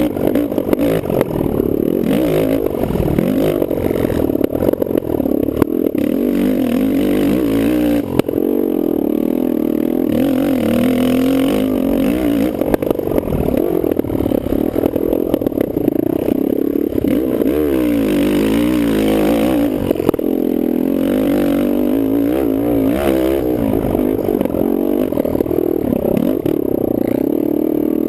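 Kawasaki KFX450R racing quad's single-cylinder four-stroke engine being ridden hard on a motocross track, its pitch rising and falling over and over as the throttle opens and closes.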